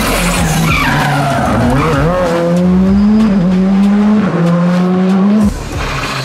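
Škoda Fabia R5 rally car's engine pulling hard out of a corner, the revs climbing and dropping in steps with quick gear changes. The sound breaks off abruptly near the end.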